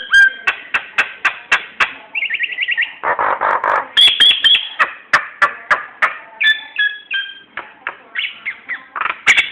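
Nias hill myna calling: a fast, unbroken run of loud clicks, chattering notes and clear ringing whistles.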